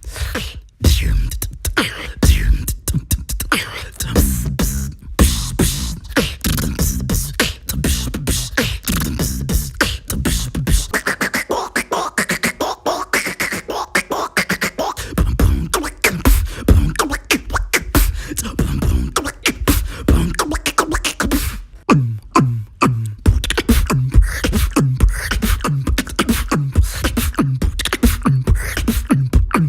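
A beatboxer performing with the mouth and throat: a fast, rhythmic run of vocal kicks, clicks and deep bass sounds, with a stretch of gliding, pitched vocal tones in the middle.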